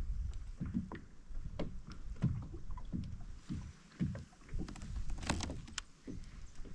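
Water slapping and knocking lightly against a fishing kayak's hull at irregular intervals, over a low rumble of wind on the microphone.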